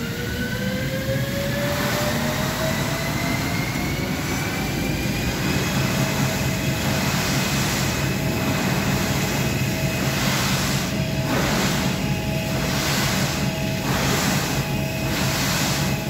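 Drive motor of an indoor ski treadmill (a moving-carpet ski slope) running up to speed: a whine that rises in pitch for about the first five seconds, then holds steady over a low hum. From about ten seconds in, skis scrape across the moving carpet in regular swishes, about three every two seconds, as the skier turns.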